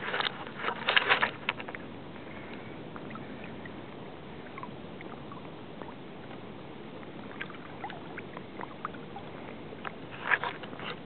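Small boat moving over calm marsh water: a steady wash of water noise with scattered light splashes and knocks. Short clusters of louder bursts come about a second in and again near the end.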